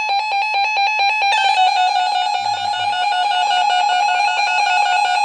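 Emergency Alert System alert tone opening a NOAA Weather Radio special marine warning, a loud electronic tone. It pulses rapidly at first, then about a second in changes to a steadier warbling tone that holds on.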